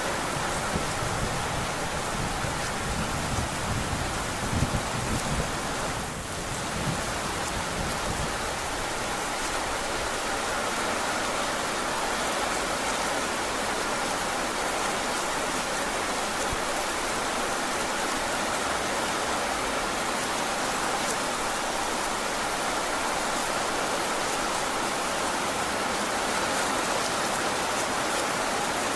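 Heavy rain falling steadily, an even hiss throughout. A low rumble of thunder sounds in the first several seconds and dies away about eight seconds in.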